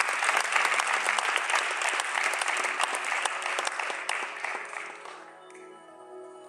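An audience applauding, which dies away about five seconds in. Soft music with long held tones comes in as the clapping fades.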